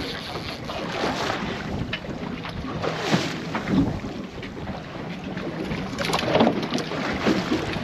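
Wind buffeting the microphone over the steady running of a fishing boat's motor and the sea, with a few short sharp noises about three seconds in and again around six seconds in.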